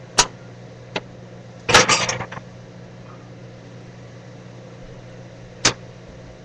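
Sharp knocks and clatter of a utensil against a frying pan: a single knock near the start and another about a second in, a quick rattle of several knocks near two seconds, and two more knocks near the end. A steady low hum sits under it.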